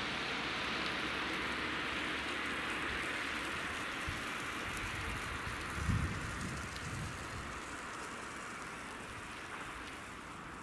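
Road traffic: a car's tyre hiss on the road, fading steadily as it drives away. There is a brief gust of wind on the microphone about six seconds in.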